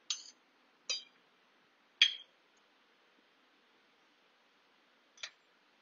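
A metal spoon clinking against a metal pot four times: once at the start, about a second in, a louder clink about two seconds in, and a fainter one near the end, with near silence between.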